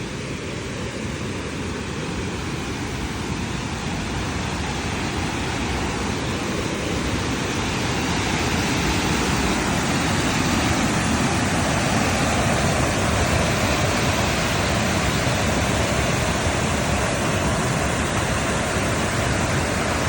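Steady rushing water, like a stream or small waterfall, growing louder over the first dozen seconds and then holding steady.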